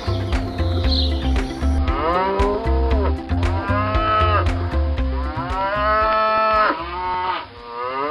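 Cattle mooing: about four long calls, each rising and then falling in pitch, starting about two seconds in, over background music with a steady beat.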